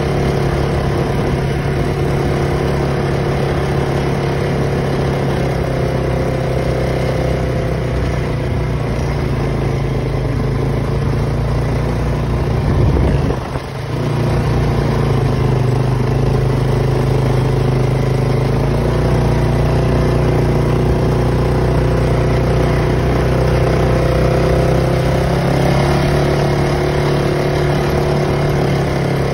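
Polaris Sportsman 570 ATV's single-cylinder engine running steadily under way, with a brief dip in loudness about halfway through.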